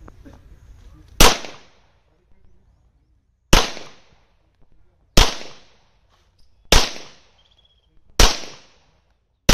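Six shots from a Webley & Scott .45 ACP semi-automatic pistol of the 1911 pattern, fired one at a time about one and a half to two seconds apart. Each is a sharp report with a short echoing tail. The last falls at the very end.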